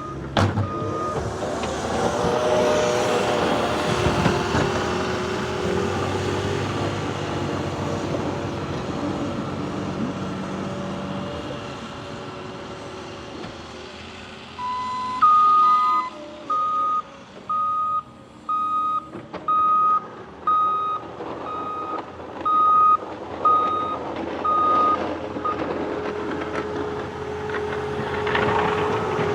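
Diesel engine of a snowplowing machine with a snow pusher working and revving, with a sharp knock just after the start. In the middle a backup alarm beeps steadily, about a dozen beeps a little under a second apart, as the machine reverses.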